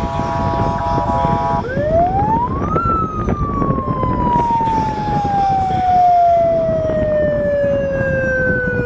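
A steady chord of several tones that cuts off under two seconds in, then a siren that sweeps up in pitch for about a second and winds slowly down over the next six seconds, over steady background noise.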